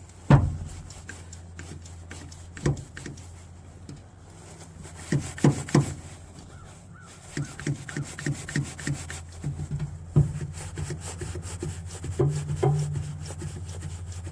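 Hand tools clicking and knocking on a jumper-cable connector: a sharp knock just after the start, a cluster of knocks about five seconds in, then a run of regular clicks, about two or three a second, all over a steady low hum.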